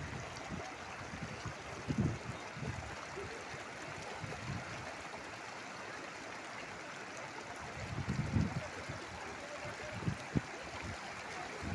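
Krishna River floodwater rushing steadily, a constant watery rush with occasional low rumbles about two seconds in and again around eight seconds.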